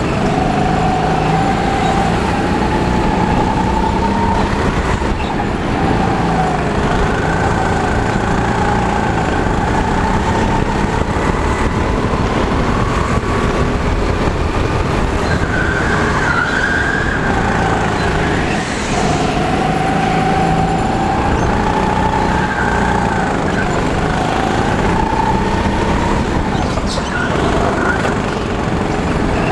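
Go-kart's motor running hard, its pitch climbing and dropping back again several times as the kart speeds up and slows.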